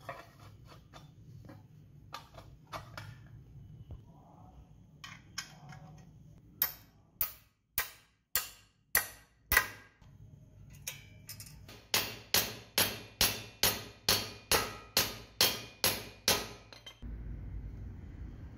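A hammer strikes a steel rivet, peening it over a washer to fasten the shovel's steel socket to its wooden handle. Light taps and clicks come first, then about six sharp metallic strikes, then an even run of about a dozen more at roughly two a second. Each strike rings briefly.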